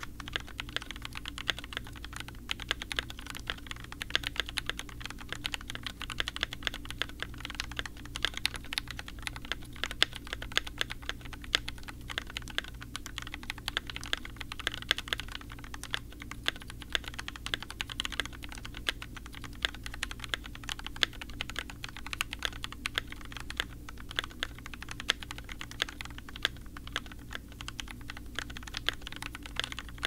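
Steady, continuous typing on a Polygon 65% custom mechanical keyboard with lubed Durock stabilizers, switches lubed with 205g0 and GMK keycaps: a dense run of keystroke clacks with no pauses.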